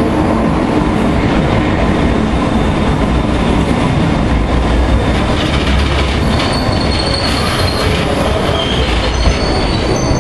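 London Underground train running into a station platform: a loud, steady rumble of steel wheels on the rails. High wheel squeals come in from about six seconds in and again near the end.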